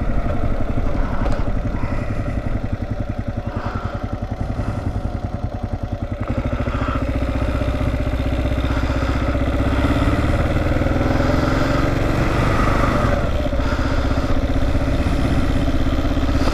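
Kawasaki KLR650's single-cylinder four-stroke engine running at low revs with distinct, evenly spaced pulses. About six seconds in it pulls harder and the pitch rises slowly, then holds steady as the bike gets under way.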